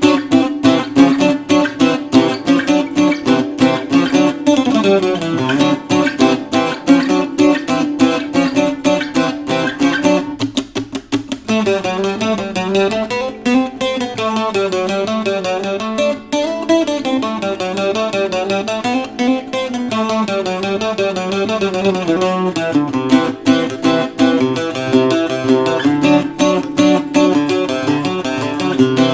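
Bajo quinto strung with Sonora strings being played, a steady run of picked and strummed chords. About ten seconds in the playing briefly thins, then carries on with a run of single melody notes over the low strings.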